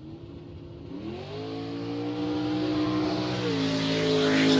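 Car engine revving as an intro sound effect: its pitch climbs about a second in and holds at high revs, with a rushing whoosh building near the end.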